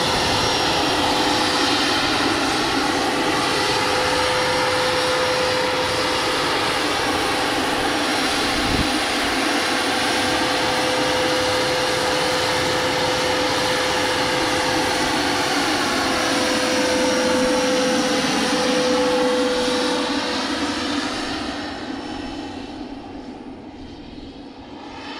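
Radio-controlled scale MD 600N helicopter flying, with a steady high whine from its drive and rotor. The whine's pitch dips and comes back up about two-thirds of the way through, then the sound fades as the helicopter flies away.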